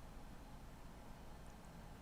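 Near silence: faint microphone hiss and a low hum of room tone, with two tiny clicks about one and a half seconds in.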